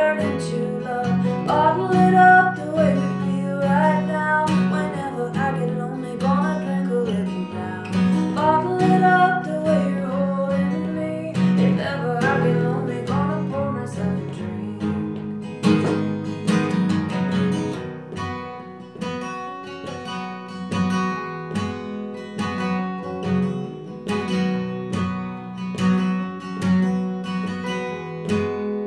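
A woman sings a country song over a strummed steel-string acoustic guitar with a capo. About halfway through the voice stops and the guitar carries on alone.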